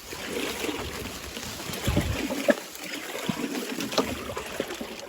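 Water splashing and trickling in a mountain ravine stream, with a few scattered light knocks.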